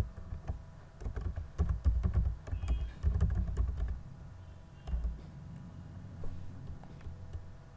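Typing on a computer keyboard: a quick run of keystrokes from about one to four seconds in, then a few more taps about five seconds in, each key click carrying a dull thud.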